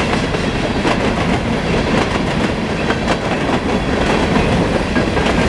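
Freight cars of a Norfolk Southern coal train rolling past close by: a steady, loud rumble with the clickety-clack of wheels striking rail joints.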